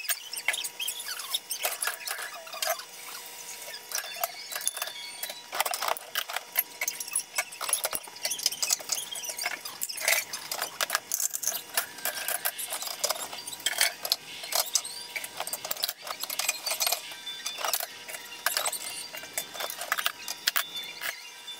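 Dishes and kitchenware clattering as they are put away: many irregular small sharp knocks and clinks.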